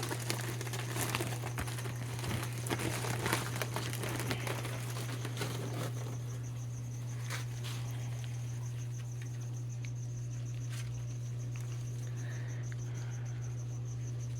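Plastic animal-shipping bags crinkling and rustling as they are handled, with scattered sharp clicks, for about the first five seconds. After that a cricket chirps in a steady, rapidly pulsing high trill. A constant low hum runs underneath.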